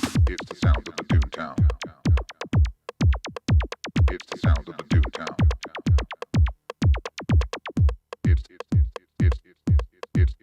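Electronic dance track: a drum-machine kick drum on every beat, about two hits a second, each dropping in pitch, with ticking hi-hats between and synthesizer sounds over it.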